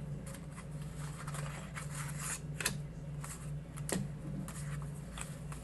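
Paper die-cut cards and vellum pieces being handled and sorted: light rustling with a few sharp paper clicks, the clearest two about two and a half and four seconds in, over a steady low hum.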